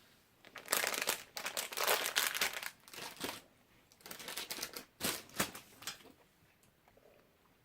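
Plastic sweet packet crinkling as it is handled, in two spells of rustling with a short pause between.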